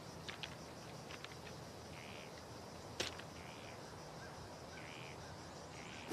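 Quiet countryside ambience with short chirps repeating every second or so. A few soft footsteps crunch on gravel, with a sharper one about three seconds in.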